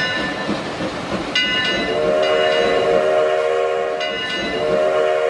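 A diesel locomotive's multi-tone air horn sounds two long blasts, the first starting about two seconds in and the second after a short break about four seconds in. Under the horn is the rumble of the approaching train.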